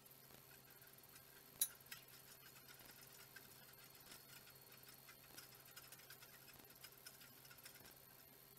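Faint, irregular metal clicks and taps from steel steering-linkage parts and hand tools being worked on a go-kart frame, with one sharper click about a second and a half in.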